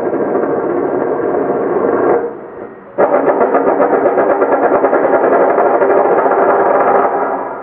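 A glass spinning on a wooden table, making a fast, dense rattle. It dies down about two seconds in, is set spinning again with a sudden start about a second later, and fades near the end.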